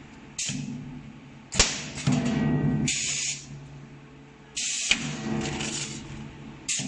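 Energy-storage (capacitor-discharge) stud welding machine cycling as it welds handle studs onto aluminium cookware: sharp cracks of the weld discharges, about a second and a half in and again near five seconds, with short bursts of air hiss and a low hum between them.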